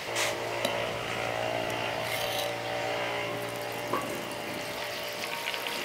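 A cloth dabs oil onto a hot iron wok, with a faint hiss and a few light knocks and scrapes. A steady low hum made of several tones runs underneath and stops just before the end.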